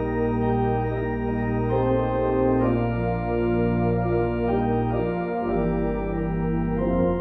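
Organ playing slow, sustained chords over a held bass note; the chord and the bass change about five seconds in.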